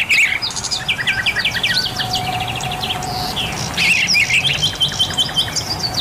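Several caged canaries singing at once, a busy tangle of chirps and fast trills.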